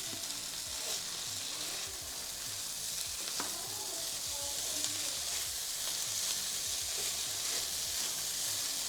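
Torn idli pieces with fried onions sizzling steadily in oil in a pan over high heat, with a few light clinks and scrapes of stirring. Being tossed to fry through, not to crisp.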